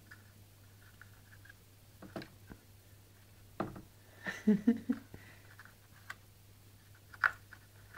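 Scattered light taps, clicks and scuffs of a cat's paw and a finger on a hard black plastic slatted panel, with a close cluster of knocks about halfway through and a sharp click near the end.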